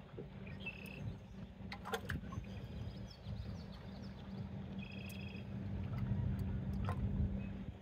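Boat motor running steadily with a low, even hum, with a few short knocks and clicks and a bird chirping briefly twice.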